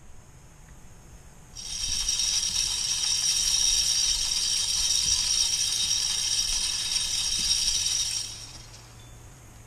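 Insect buzzing: a loud, high, steady buzz that starts abruptly about a second and a half in and fades out about eight seconds in.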